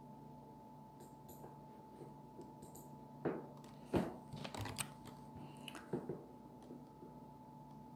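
A handful of short, sharp computer mouse clicks, spaced irregularly through the middle of the stretch, over a faint steady electrical hum.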